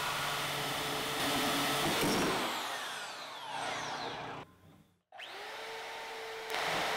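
DeWalt DWM120K deep-cut portable bandsaw running at a steady pitch, then released about two seconds in and winding down. After a short gap it starts again and spins back up to speed.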